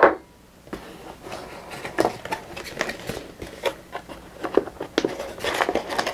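Cardboard packaging inserts and plastic-wrapped contents being handled in a box: irregular rustling, scraping and clicking as flaps are lifted and cables pulled out, with a sharp knock right at the start.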